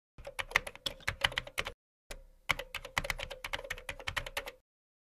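Typing keystrokes clicking in quick succession, in two runs with a short pause just under two seconds in; the second run stops shortly before the end.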